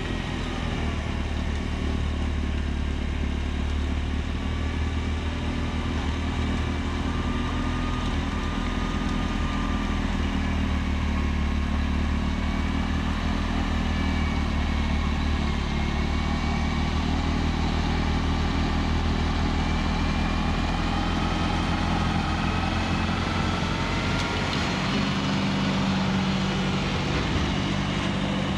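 John Deere 4052R compact tractor's diesel engine running steadily under load while driving a front-PTO Pronovost PXPL-80 snowblower, with faint whining tones that wander in pitch above the low engine hum. The engine note shifts about 25 seconds in.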